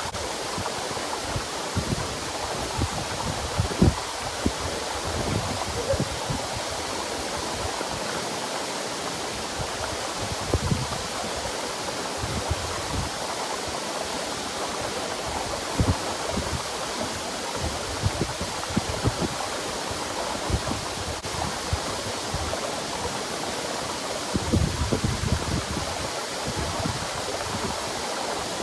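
Waterfall rushing steadily, an even hiss of falling water, with irregular low thumps mixed in.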